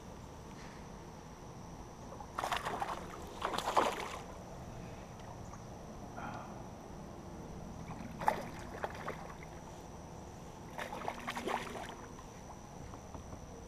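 Water splashing in three short bursts as a hooked bass thrashes at the surface close to a kayak.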